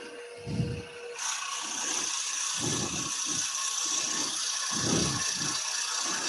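Forstner bit on an extension boring into a spinning wooden pepper-grinder blank on a lathe. A steady cutting hiss starts about a second in, over irregular low thumps.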